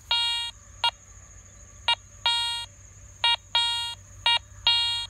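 Garrett ACE 300 metal detector beeping as its coil is swept back and forth over a buried target. It gives a short blip then a longer beep at one pitch, about once a second, a clear repeatable signal.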